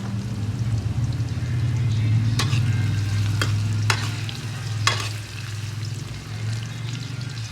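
Crab sizzling as it is stir-fried in a pan, with a few sharp knocks of the utensil against the pan.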